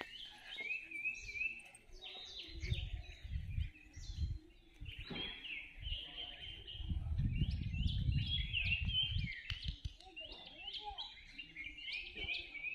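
Many small birds chirping in dense, overlapping short calls. A low rumble comes in twice, the second time longer and louder, around the middle.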